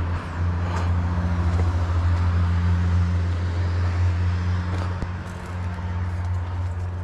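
A steady low mechanical hum, like an engine running, with a few faint clicks over it.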